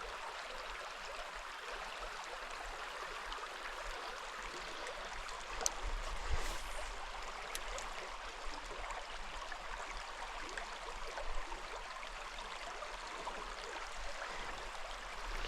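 Mountain stream water running over rocks, a steady rushing babble, with a couple of faint clicks about halfway through.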